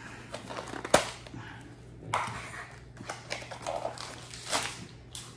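A small cardboard blind box being handled and opened, with scattered rustles and clicks of cardboard and packaging and one sharp click about a second in.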